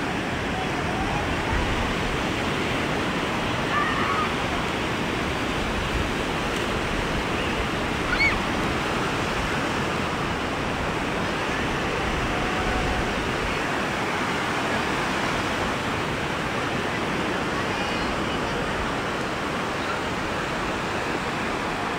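Surf on a beach: a steady rush of small waves breaking and washing ashore.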